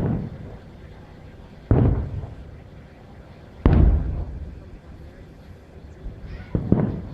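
Aerial firework shells bursting: four booms a couple of seconds apart, each trailing off in a rumble, the third, about halfway through, the loudest.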